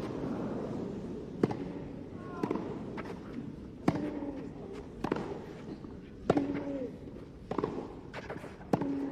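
Tennis ball struck back and forth in a rally: sharp racket hits about every second and a quarter, about seven in all. Several hits are followed by short vocal grunts from the players, over a steady murmur of court ambience.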